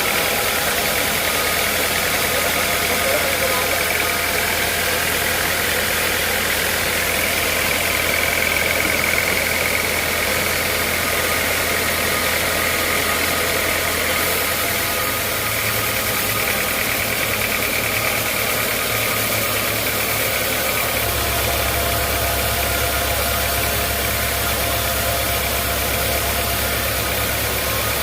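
Sawmill machinery running steadily, an engine-like drone with a steady high whine over it. The low hum shifts in pitch about halfway through and again near the end.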